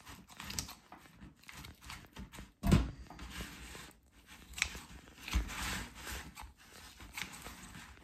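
Kitchen poultry shears snipping through raw chicken, with scattered clicks and rustles of the blades and the handling of the meat. A dull thump about three seconds in, the loudest sound, as a cut piece of chicken is dropped into a metal roasting tray.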